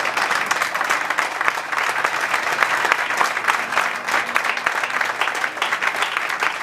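Audience applauding: steady, dense clapping that keeps going without a break.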